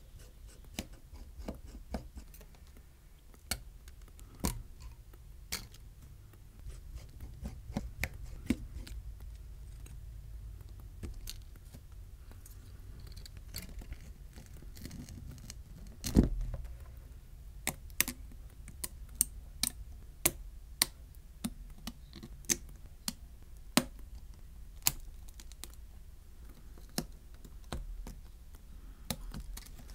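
Small, sharp clicks, taps and scratches of a precision screwdriver, small metal brackets and a plastic spudger working on the screws and flex-cable connectors inside an iPhone 12, with one louder knock about sixteen seconds in.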